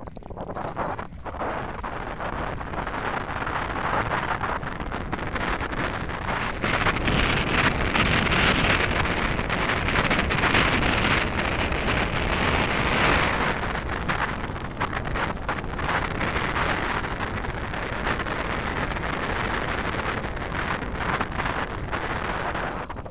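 Wind buffeting the microphone of a camera on a moving mountain bike, over a crackle of tyres rolling on a gravel track and the bike rattling. It is loudest through the middle stretch.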